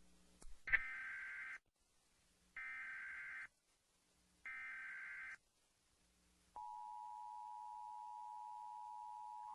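Emergency Alert System test: three short bursts of SAME header data tones, each just under a second and about a second apart. A little over a second after the last burst comes the steady two-tone EAS attention signal (853 and 960 Hz), which starts about six and a half seconds in and holds on. This is the opening of a broadcast EAS national test.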